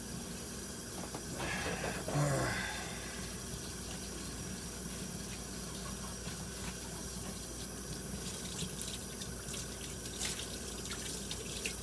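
Kitchen sink faucet running steadily while dishes are hand-washed under it, with a few light clinks of dishware near the end.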